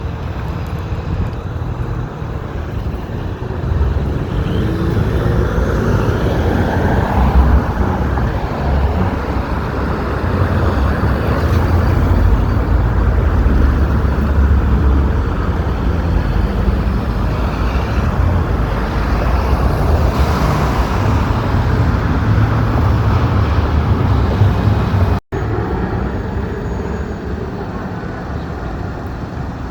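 Busy road traffic: a steady low rumble of cars and heavier vehicles passing close by, loudest in the middle stretch. The sound drops out for an instant about 25 seconds in.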